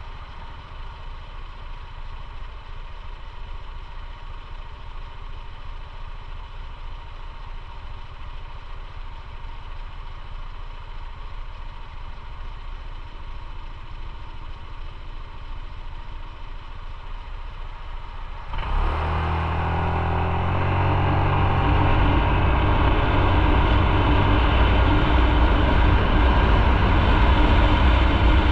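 Motorcycle engine running low and steady. About two-thirds of the way in, the sound jumps abruptly louder as the bike accelerates away, its engine pitch stepping up, with wind and road noise rushing over the microphone.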